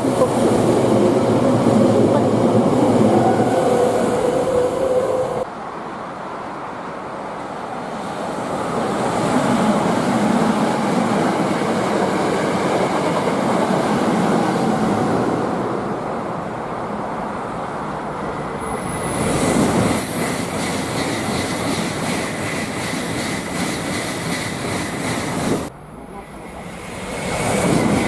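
Electric trains running past a station platform, a steady rolling rumble across several cut-together shots that changes abruptly twice. A thin high tone sets in about two-thirds of the way through.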